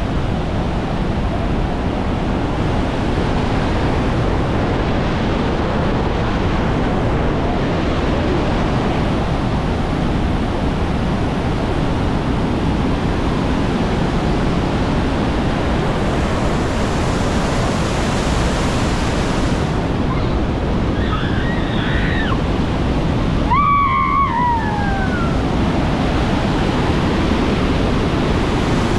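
Bridal Veil Falls crashing onto the rocks at close range: a loud, steady roar of pounding water. Two brief, faint voice cries rise over it about three quarters of the way through.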